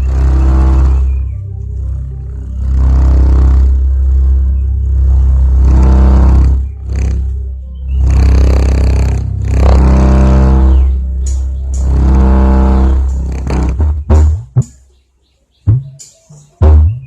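Music played through an amplifier fed by an op-amp low-pass woofer filter, the deep bass by far the strongest part. Near the end the sound breaks up into short bursts with gaps.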